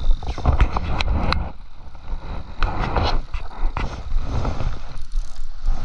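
Wind buffeting a body-worn camera's microphone as an uneven low rumble, with scattered clicks and rustles from clothing and the rod being handled.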